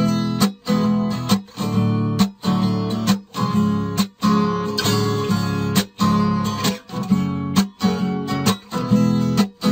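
Acoustic guitar strummed in a steady rhythm, chords broken by short stops.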